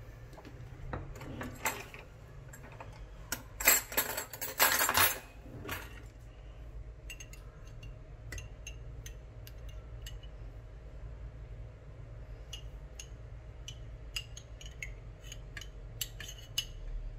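A metal spoon clinking and scraping against a glass jar of pickled plums as the plums are scooped out. There is a louder stretch of scraping and rattling about four seconds in, then many light, scattered clinks of the spoon on the glass.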